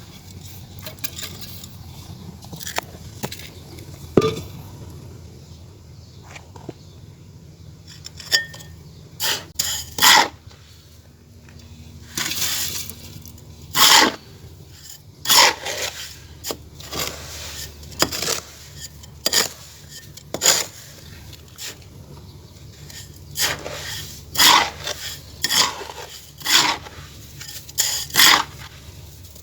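Gritty scraping and crunching strokes of moulded clay being worked by hand. They are sparse at first, then come about once every second or so from about a third of the way in.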